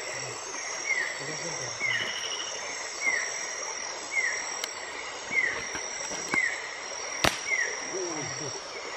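Night rainforest insect chorus with steady high-pitched trilling, over which a short downward chirp repeats about once a second. A single sharp click sounds about seven seconds in.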